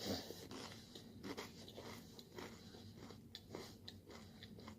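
Quiet chewing and mouth sounds of someone eating, with a few small clicks scattered through.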